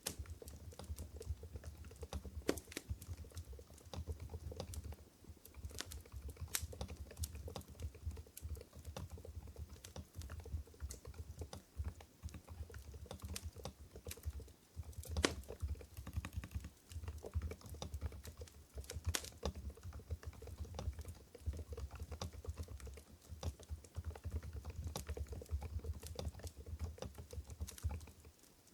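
Continuous typing on an Mstone Groove GV10 keyboard with silent Coral 45 g switches: a dense, irregular run of soft, muted keystrokes, with a few louder strokes scattered through.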